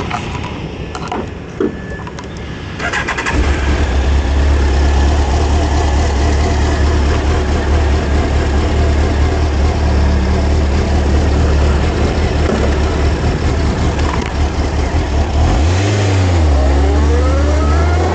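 Kawasaki ZX-12R's inline-four engine starting about three seconds in, after a few clicks, then idling steadily. Near the end the engine note dips and rises as it revs up.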